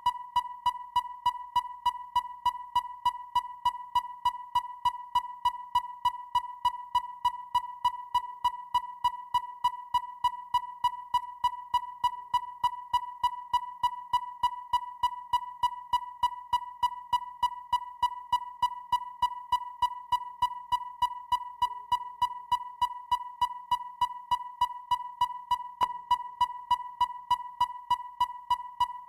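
Depth finder's electronic sonar pinging: a steady high beep tone with a sharp tick repeating evenly about two and a half times a second.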